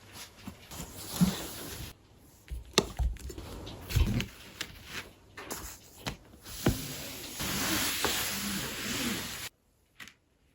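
Household handling sounds: a run of clicks, knocks and dull thuds, then a few seconds of steady hiss that cuts off abruptly near the end.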